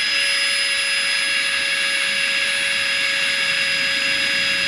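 Small battery-powered electric air pump inflating a sleeping mat: the motor spins up with a rising whine, then runs at a steady high pitch with a rushing hiss, and cuts off suddenly at the end.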